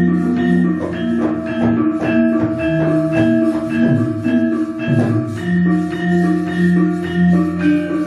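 Javanese gamelan orchestra playing an instrumental passage: struck metallophones ringing in a steady rhythm over low held notes.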